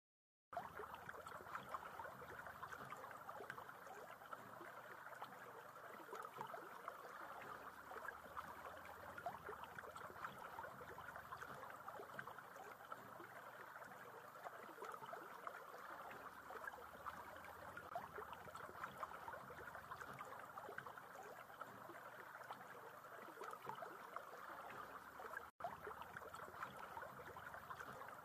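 Faint, steady rushing of a flowing river, starting after a moment of silence, with a brief dropout near the end.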